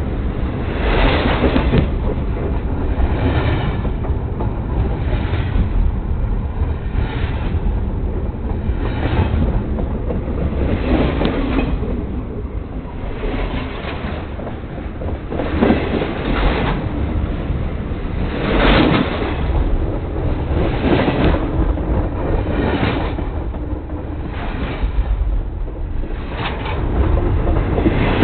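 Railway train rolling over the camera, heard from beneath the cars: a steady low rumble, with a clatter of wheels over the rail about every two seconds.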